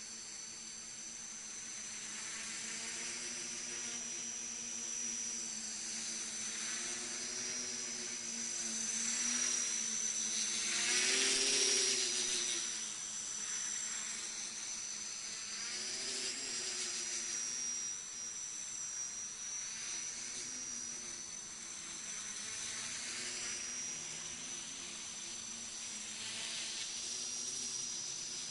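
Small FPV quadcopter's electric motors and propellers buzzing in flight, the pitch wavering up and down with the throttle. It swells loudest about ten to twelve seconds in, then eases off.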